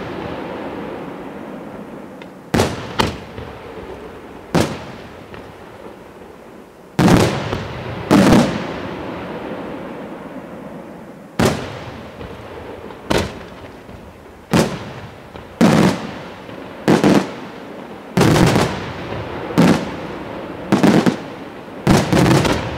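Aerial firework shells bursting overhead one after another: about a dozen loud bangs, one every second or two, each followed by a fading rumble of echo.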